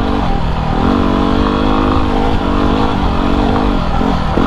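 Yamaha WR250R's single-cylinder four-stroke engine and exhaust pulling under riding load. The pitch dips and climbs again with the throttle several times.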